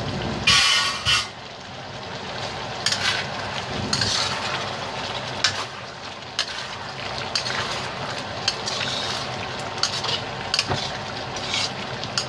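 A metal spatula stirring and scraping thick chicken curry in a steel wok, with irregular scrapes and clinks against the pan over a steady simmer. About half a second in there is a loud, ringing metal clatter.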